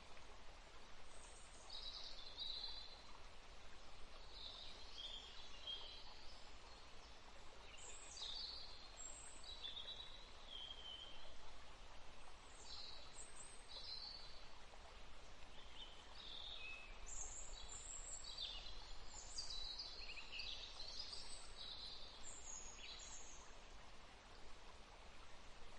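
Faint birdsong: scattered short chirps and twitters over a steady low hiss, growing busier in the second half.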